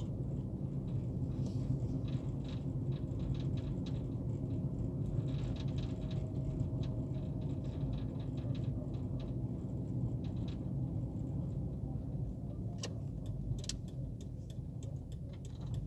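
Car engine and road noise heard from inside the cabin while driving slowly along a paved street: a steady low rumble. A few sharp clicks come near the end.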